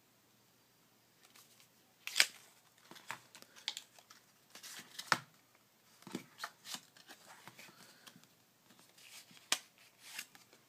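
A deck of playing cards and its paper tuck box being handled: scattered rustles, slides and light clicks, the sharpest about two seconds in and another about five seconds in.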